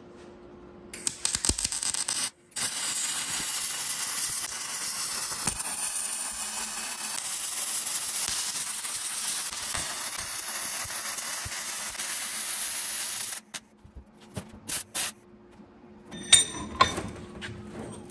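MIG welding arc crackling. There is a short bead about a second in, a brief stop, then one long continuous bead of about eleven seconds that cuts off suddenly. Scattered clicks and a few light metal taps follow near the end.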